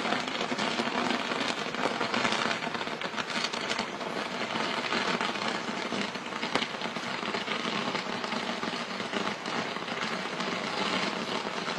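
Burning fireworks crackling densely and without a break, a continuous mass of small pops.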